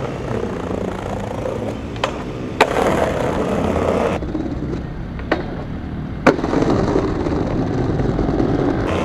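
Skateboard wheels rolling over patterned concrete paving tiles, a steady gritty rumble with a few sharp clicks along the way.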